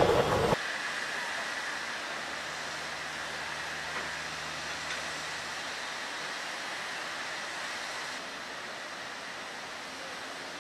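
A steam train runs by close for the first half-second, then the sound cuts to a steady rushing hiss with no clear rhythm.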